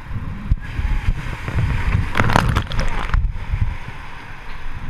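Whitewater rapids crashing and splashing around an oar raft, with wind buffeting the camera microphone; a louder surge of water and spray hits about two seconds in.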